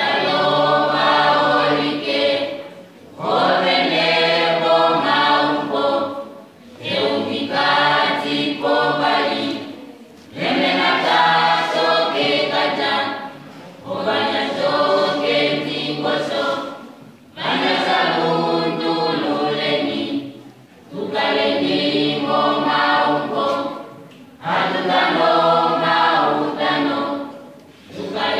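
Mixed choir of young men's and women's voices singing unaccompanied. It sings in repeated phrases of about three seconds, with a short break between each.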